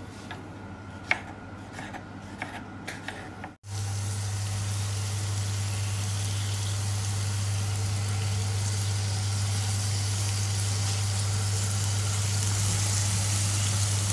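A few light knife taps on a wooden chopping board as plums are sliced. About three and a half seconds in this gives way to plum pieces and sugar sizzling steadily in a hot frying pan, with a steady low hum underneath.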